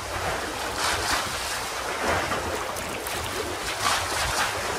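Sea water rushing and splashing past a moving boat, swelling in repeated surges, with wind buffeting the microphone and a low rumble underneath.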